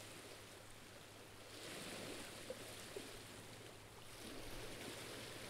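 Faint sea waves lapping at a rocky shore: a soft wash that swells about a second and a half in and again after about four seconds.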